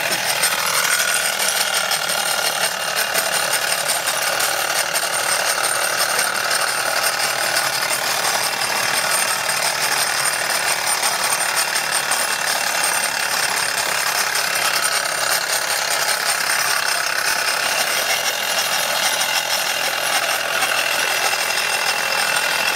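Wilesco D415 model steam tractor running under steam and driving across paving slabs, its engine and metal wheels making a steady, busy rattling vibration. The owner thinks the rattle comes from a drive wheel.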